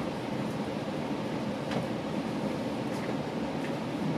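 Steady running noise of a GO Transit commuter train heard from inside a passenger coach: an even rumble of wheels on track, with a couple of faint ticks.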